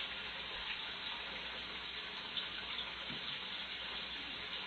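Steady rush of running water, with a couple of faint ticks.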